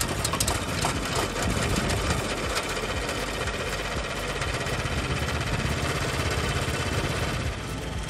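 Kawasaki FJ100D single-cylinder four-stroke engine running steadily just after a pull start, with the choke on. Its level drops slightly near the end.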